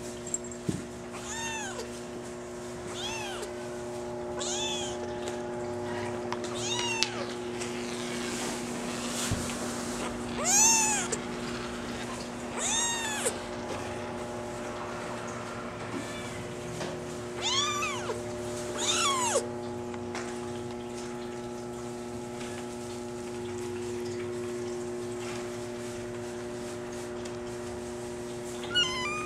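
Maine Coon kitten mewing: a string of short, high-pitched mews that each rise and fall in pitch, the loudest about halfway through, then a quiet stretch of several seconds before one last mew near the end. A steady low hum runs underneath.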